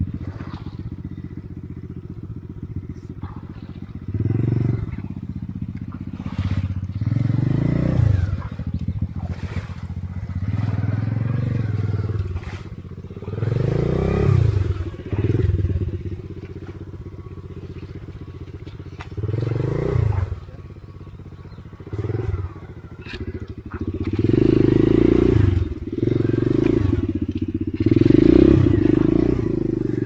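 Enduro motorcycle engine idling between about a dozen bursts of throttle, each revving up for a second or so and dropping back, the longest and loudest near the end.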